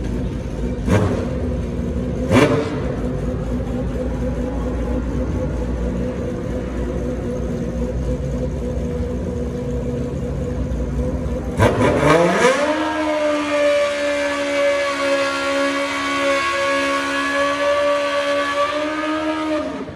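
Sportbike engine idling with a couple of short blips, then revved up sharply about twelve seconds in and held at high revs through a burnout that spins the rear tyre. The engine note cuts off suddenly near the end.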